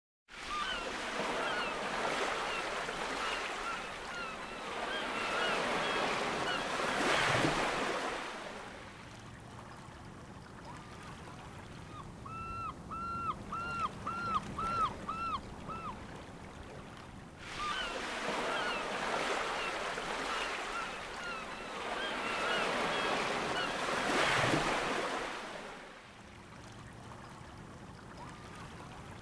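Surf washing in and drawing back in two long swells, with a bird calling in a quick run of short rising-and-falling notes, about two a second, between the swells and again near the end.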